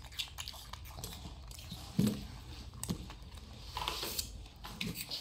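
A macaque biting and chewing raw apple, with scattered small clicks and a few soft knocks on the table, the loudest about two seconds in.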